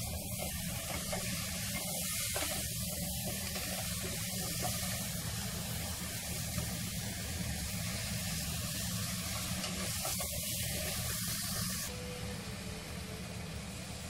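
Steady hiss of squash cooking in a stainless steel pot on a stove burner, over a low steady hum; the hiss drops off abruptly about two seconds before the end.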